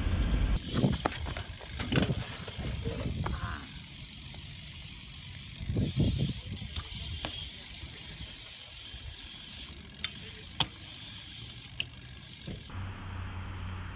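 A BMX bike being ridden: tyres rolling with mechanical rattling and ticking from the bike, and a few sharp clacks scattered through it, following a brief low rumble of a car at the very start.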